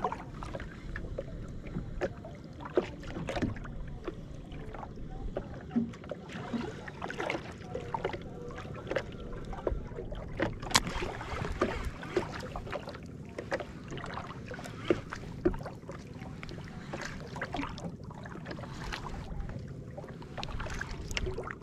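Small waves lapping and slapping irregularly against a plastic kayak hull, over a low wind rumble, with scattered sharp knocks and clicks.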